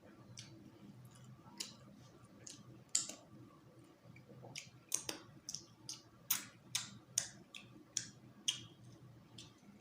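Close-up mouth sounds of a person eating rice and stew by hand: a run of irregular wet clicks and smacks from chewing and lips, thickest in the second half.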